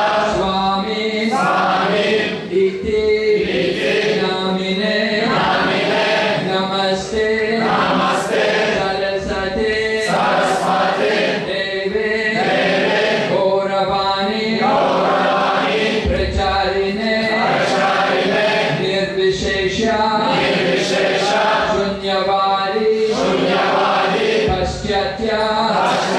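A crowd of devotees chanting a devotional kirtan together, with one voice leading over a microphone, in repeated sung phrases.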